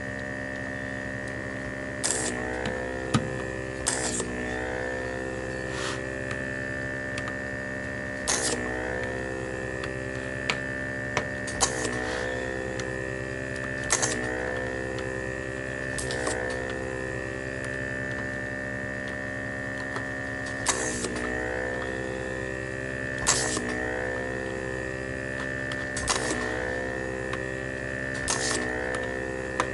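Vacuum pump of a homemade vacuum desoldering iron running with a steady hum. Every two to three seconds a short sharp rush of suction cuts in as a switch's solder joint is sucked clear, and the pump's pitch dips briefly under the load before it recovers.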